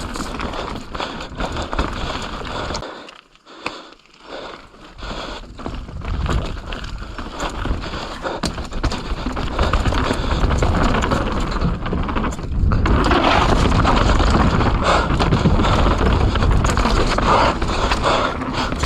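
Mountain bike descending fast on a wet dirt trail: tyre noise and rattling of the bike over rough ground, with wind rushing on the camera microphone. The noise drops away briefly about three seconds in, then grows louder and steadier in the second half.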